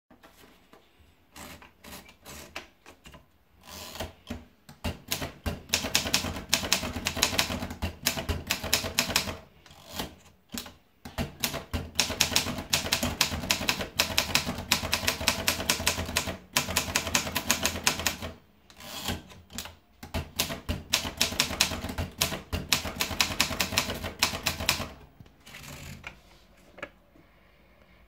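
Orbis manual portable typewriter: a few scattered clicks over the first four seconds as a sheet is wound in, then fast typing in three long runs of keystrikes, with short pauses between the runs.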